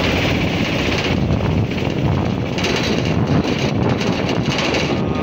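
Steady rumble of a moving vehicle in traffic, heard from on board, with wind buffeting the microphone.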